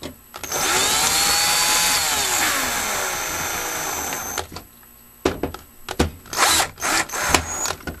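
Cordless power driver running a screw down to fasten a voltage regulator onto an alternator. The motor runs for about four seconds, its whine rising slightly, then dropping in pitch as the screw tightens, before it stops. Then come several short bursts as the screw is snugged down.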